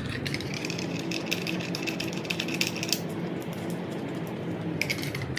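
Rapid small metallic clicking and rattling of a nut being turned by hand onto a battery terminal post, pausing about three seconds in and starting again near the end.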